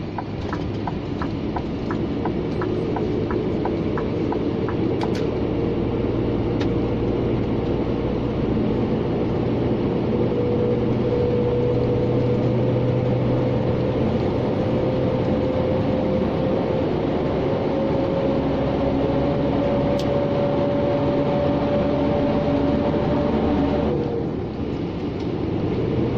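Scania G460 truck heard from inside the cab while driving on a wet road: steady engine and tyre noise, with a whine that slowly rises in pitch as the truck gathers speed. The whine breaks off about 24 seconds in and resumes lower, as at a gear change. A regular ticking runs for the first few seconds.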